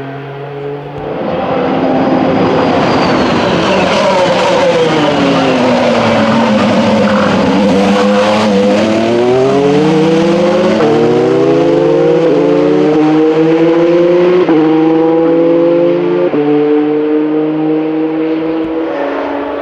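Formula 2 race car engine passing close: its pitch falls for several seconds as it slows, then climbs again through about four quick upshifts as it accelerates away.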